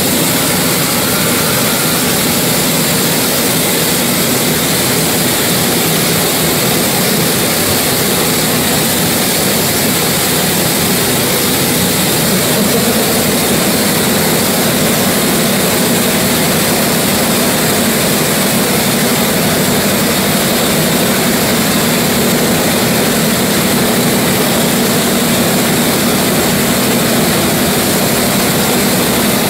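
Compressed-air paraffin blow lamps burning with a steady, noisy rush as they heat the cylinder heads of a 1925 Gardner 4T5 oil engine, warming it up for starting.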